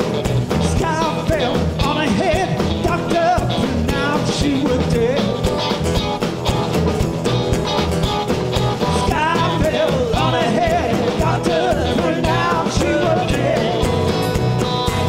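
Live band playing an upbeat blues-rock song with drum kit, bass, electric lead guitar and strummed acoustic guitar, a wavering melody line over a steady beat.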